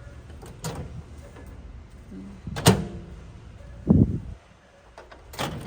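A few sharp knocks or clacks, the loudest about two and a half seconds in, and a dull low thump about four seconds in, over steady background noise.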